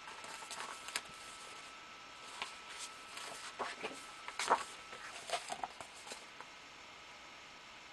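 Large picture-book pages being turned and the books handled: scattered soft paper rustles and taps, the loudest about four and a half seconds in.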